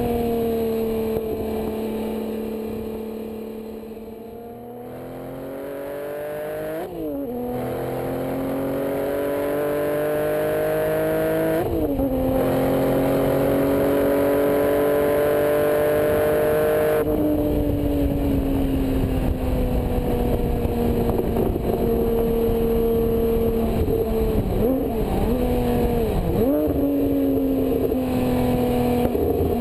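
Porsche 997 GT2 RS twin-turbo 3.6-litre flat-six heard at the tailpipes through a GMG World Challenge GT exhaust while driving. The note fades as the throttle eases, then builds under acceleration through two gear changes, each a sudden drop in pitch. It then holds a steady, loud note whose pitch slowly falls.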